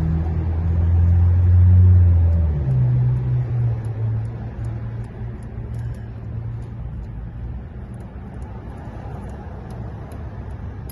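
A motor vehicle's engine running nearby: its low hum climbs just before, holds steady, eases off about two and a half seconds in and fades away over the next several seconds. Faint small metallic clicks sit over it.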